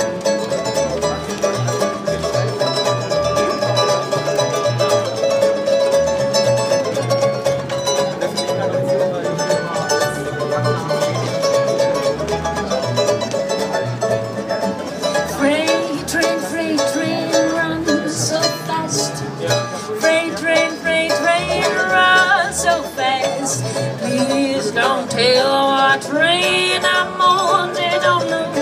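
Acoustic guitar and ukuleles playing an instrumental break in a fingerpicked country-blues style. From about halfway through, a lead melody whose pitch slides and wavers comes in over the strings.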